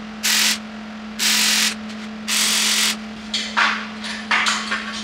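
MIG welder laying tack welds on a square-tube steel flatbed frame: three crackling arc bursts of about half a second each, roughly a second apart, then several shorter, choppier bursts. A steady low hum runs underneath.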